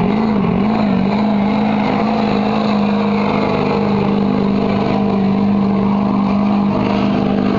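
Diesel pickup truck engine held at high revs under full load, dragging a weight sled down the pull track. The pitch wavers briefly near the start, then holds steady.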